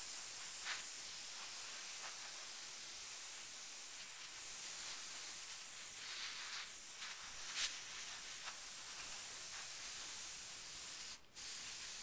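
Copic ABS-1 airbrush spraying alcohol marker ink: a steady hiss of compressed air, broken by one short pause about eleven seconds in.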